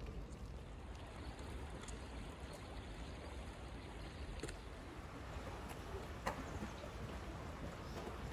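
Steady outdoor ambient noise, mostly a low rumble, with a few short clicks; the sharpest comes about six seconds in.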